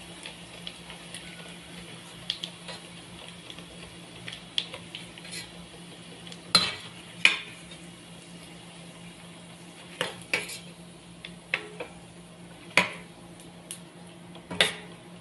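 Chicken skin deep-frying in oil in a stainless steel pan with a steady sizzle, while a metal spoon scrapes and clinks against the pan as pieces are lifted out. A handful of sharp metal knocks stand out, the loudest two about halfway through.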